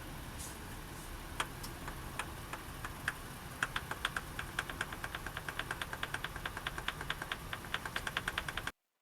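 A diesel truck engine running steadily, with a sharp regular ticking of about six clicks a second that joins in a few seconds in. It cuts off abruptly near the end.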